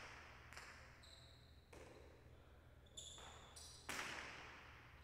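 Jai alai pelota striking the walls and floor of the court during a rally: four sharp cracks, each ringing out in the hall, the last the loudest.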